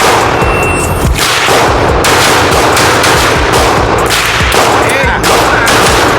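A shot timer beeps once, shortly after the start. A handgun then fires a string of shots over the next five seconds or so, each shot a sharp crack.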